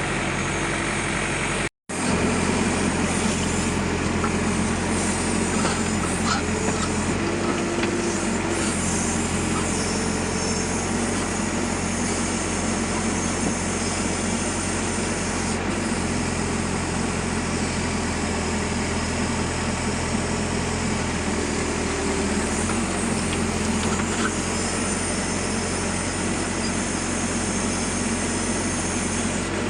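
Backhoe loader's diesel engine running steadily under work, its pitch shifting slightly now and then. The sound cuts out for an instant about two seconds in.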